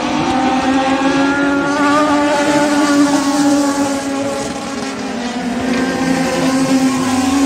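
Race car engines running at speed around a short oval track, a steady droning note whose pitch wavers slightly up and down as the cars go through the turns.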